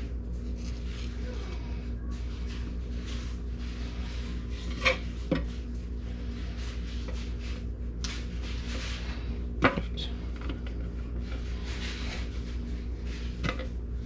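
Fillet knife scraping and slicing in repeated strokes as it separates a brown trout fillet from its skin on a ridged wooden fillet board, with a few sharp taps of the blade on the board, the loudest a little under ten seconds in. A steady low hum runs underneath.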